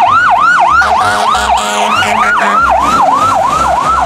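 Loud, fast yelping emergency-vehicle siren, its pitch sweeping down and back up about four times a second; it starts suddenly.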